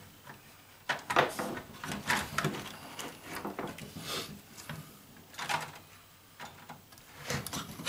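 Scattered clicks, knocks and light rattles of a stereo receiver's sheet-metal chassis and internal parts being handled while a ribbon cable is pulled free, about half a dozen separate knocks.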